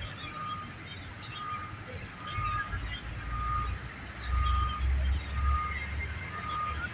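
A vehicle's reversing alarm beeping steadily, one short beep about every second, over a low rumble that grows louder about a third of the way in.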